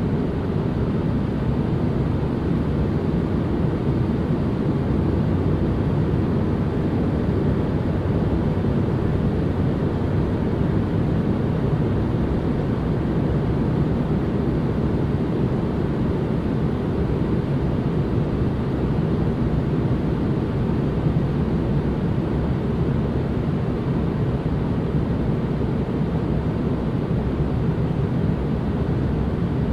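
Steady, unbroken white-noise track, weighted toward the low end so it comes across as a deep, even rush, like an aircraft cabin hum, with little hiss on top.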